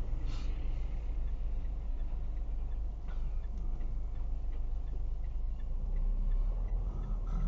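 Low, steady rumble of traffic and the car's own engine heard from inside the cabin, growing louder about six seconds in as a truck rolls alongside, with a few faint clicks.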